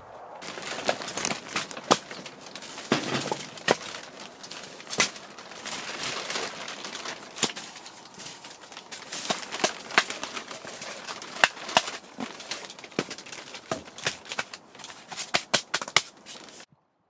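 Split firewood being handled and stacked by hand: irregular sharp knocks and clatters of wood on wood over a continuous rustling. It stops abruptly just before the end.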